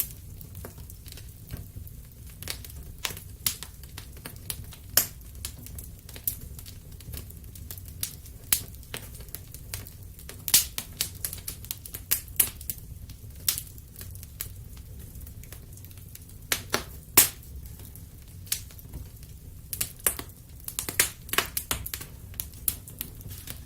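Wood fire crackling in a fireplace: irregular sharp pops and snaps over a steady low rumble, thickening into a quick run of snaps about two thirds of the way in.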